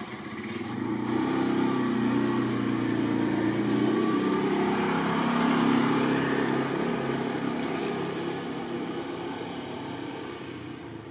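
A motor vehicle's engine running as it passes: it grows louder over the first couple of seconds, is loudest about six seconds in, then fades away.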